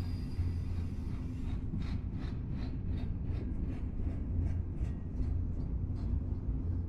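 Double-stack container freight train rolling past with a steady low rumble. A faint high wheel squeal fades in the first second or two. Then the wheels clack regularly, several times a second.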